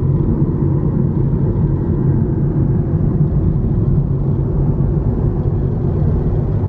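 Steady low rumble of road and engine noise inside a moving car's cabin while cruising.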